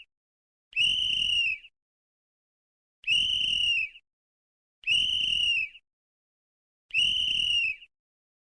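Sports referee's whistle blown in four short blasts, each just under a second long, about two seconds apart, with a shrill steady tone that dips slightly as each blast ends.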